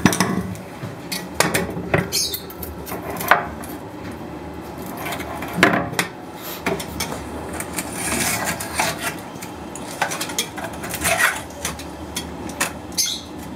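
Razor blade cutting through the silicone seam of a glass aquarium, scraping and rasping against the glass, with scattered sharp clicks and knocks of blade and glass.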